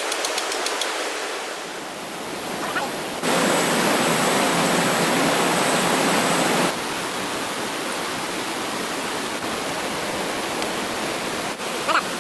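Rushing stream water, a steady hiss that gets louder for a few seconds from about three seconds in, starting and stopping abruptly.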